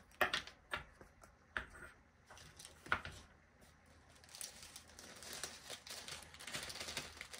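Small plastic bags of diamond painting drills crinkling and rustling as they are handled, with a few light clicks in the first three seconds and steadier crinkling from about four seconds in.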